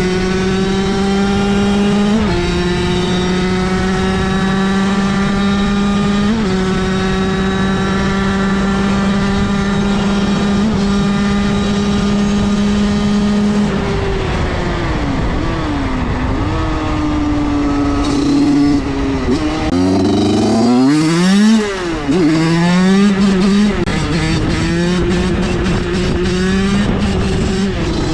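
Small motorcycle engine, an 86 TPR, running hard at high revs and held nearly steady for the first half, with two brief blips. Past the middle the revs drop, then swing sharply up and down with the throttle before settling back to a steady high pitch near the end.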